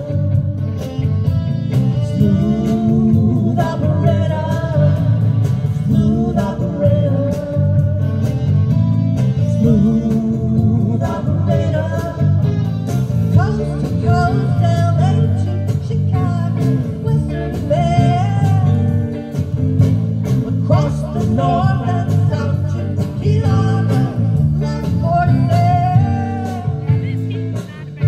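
Live rock band playing: a woman sings lead over electric guitar, bass guitar, keyboard and drums.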